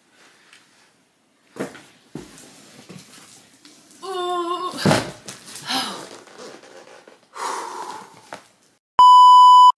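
A large taped cardboard box is handled and set down: rustling, knocks and a thump, with a short strained vocal sound from the lifter about four seconds in. Near the end a loud, steady 1 kHz beep tone lasts under a second, cutting in and out abruptly like a censor bleep.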